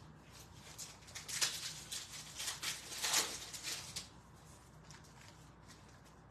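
Foil trading-card pack wrappers crinkling and cards being handled, a dense rustle with sharp crackles that starts about a second in and dies away at about four seconds.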